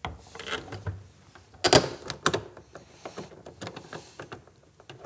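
Scattered small metallic clicks and taps of an Allen key and screw being worked by hand as a fairing bolt is threaded in, with one louder knock a little under two seconds in.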